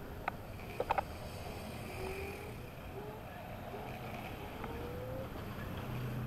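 Electric kick scooter riding slowly along a street: a steady rumble of road and wind, a few sharp clicks about a second in, and a faint whine that rises in pitch a few times.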